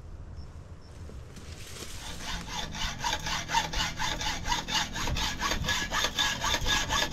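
Hacksaw cutting a steel reinforcing rod by hand: a rhythmic rasp, about three strokes a second, that starts about two seconds in and grows louder.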